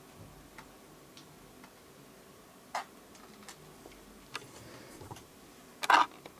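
Quiet room tone with scattered, irregular soft clicks, one louder click partway through, and a sharp clack about six seconds in, the loudest sound.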